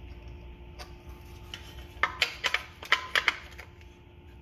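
Several sharp metallic clicks and clinks, bunched between about two and three seconds in, as the recoil starter pulley with its rewind spring is set into the metal starter housing of a 1.2–2 HP Johnson/Evinrude Colt/Junior outboard.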